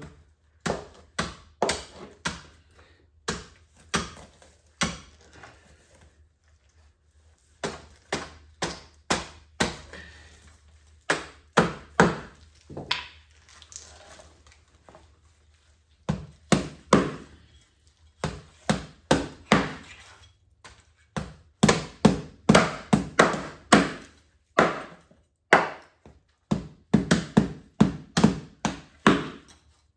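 Knife chopping fish: a long run of sharp chops, often in quick bursts, with short pauses about six and fourteen seconds in.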